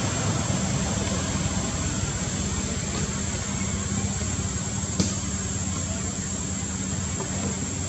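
Steady outdoor background noise: a constant hiss with a thin high-pitched whine and a low hum, broken by one short sharp click about five seconds in.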